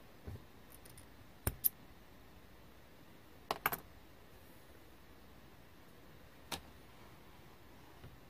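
Cross-stitch needle punching through black 14-count fabric, with floss drawn after it: a handful of sharp clicks, spaced seconds apart, some in quick pairs or threes.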